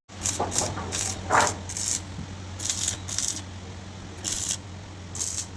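Electric arc welding: short sizzling bursts of tack welds, about ten at irregular spacing, over the steady low hum of the welding machine.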